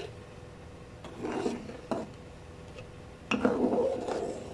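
Spoon stirring thick haleem in a metal pot, scraping against the pot. There is a short scrape about a second in and a sharp click near two seconds, then louder, steadier scraping and stirring from about three seconds in.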